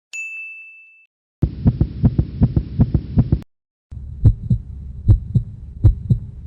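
Separate sound effects. First a single bright ding that rings out over about a second. Then a rapid run of low thumps for about two seconds, and after a short gap a slower heartbeat, three lub-dub pairs of thumps.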